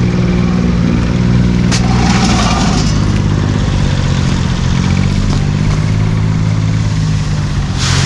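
An engine running steadily at an even speed, a low hum throughout, with a sharp click and a short rustle about two seconds in and another short rustle near the end.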